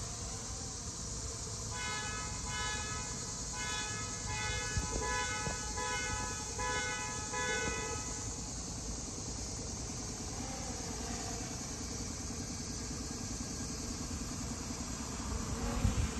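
A horn sounds a quick, regular run of short toots for about six seconds, from a couple of seconds in, over a steady low rumble.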